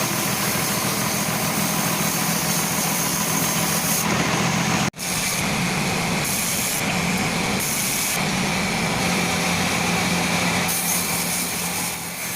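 Sawmill machine saw running steadily while ripping a teak log, a constant engine-like drone with a thin whine from the blade. The sound drops out for an instant about five seconds in, then resumes.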